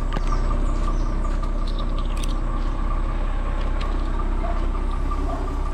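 An engine running steadily with a low hum, a high steady tone over it and a few light clicks.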